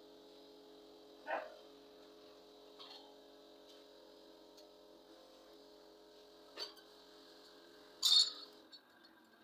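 A steady faint machine hum with several short knocks or clicks, the loudest about eight seconds in.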